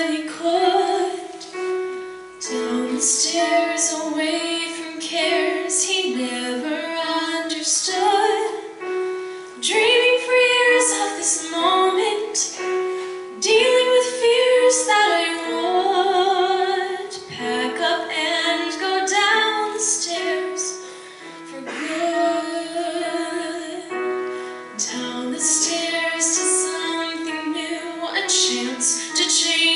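Solo female voice singing a song with grand piano accompaniment.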